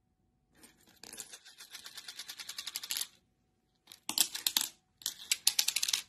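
Lovebird playing with plastic toy balls that hold bells: rapid rattling clicks in three bursts, a long one and then two shorter, louder ones near the end.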